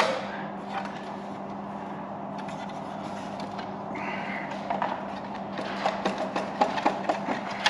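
Light metallic clicks and taps of a hand tool working the exhaust pipe clips and heat shields on a Bristol Hercules radial engine, in small clusters over a steady background hum.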